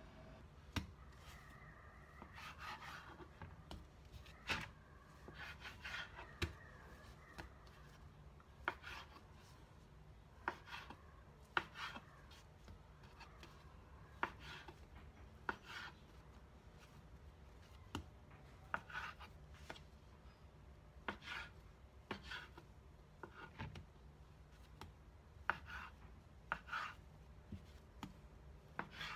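Kitchen knife cutting soft bakpia dough into pieces on a plastic cutting board: irregular sharp taps of the blade on the board about every one to two seconds, with soft rubbing of hands and dough between them.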